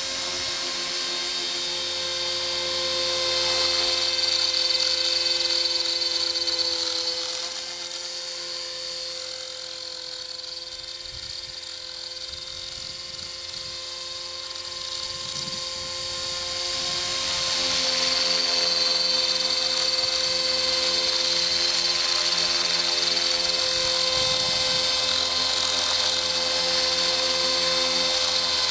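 Electric 450-size RC helicopter flying, with the steady whine of its brushless motor and spinning rotors. It grows fainter for several seconds midway and then comes back louder.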